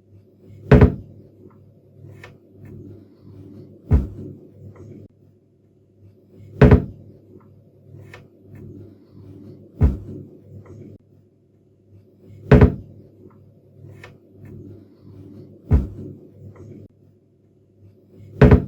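Wooden kitchen cabinet door shut again and again: seven sharp knocks about every three seconds, alternating louder and softer, with faint clicks of the hinge and catch between them, over a low steady hum.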